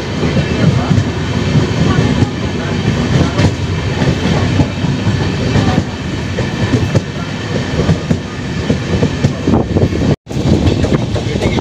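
Udyan Express passenger train running at speed: steady rumble of the coach with a dense, irregular clatter of wheels over the rail joints. The sound cuts out for a split second about ten seconds in, then resumes.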